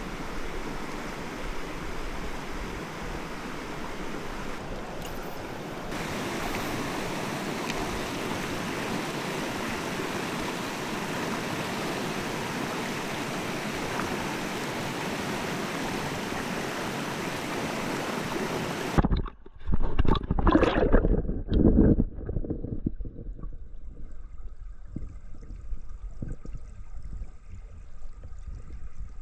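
Clear mountain stream rushing steadily. About two-thirds of the way in, the sound turns abruptly muffled and deep, with loud surging and gurgling for a few seconds and then softer bubbling, as water heard from below the surface.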